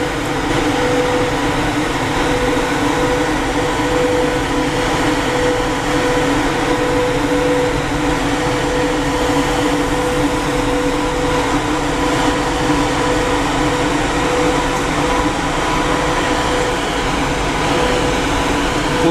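VL80K two-section AC electric locomotive running as it slowly pulls a freight train out: a loud, steady electric hum and whine over the rush of its cooling blowers.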